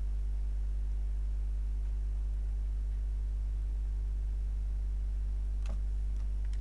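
Steady low electrical hum with a buzz of higher overtones, the constant background of the recording setup. A few faint short clicks come near the end.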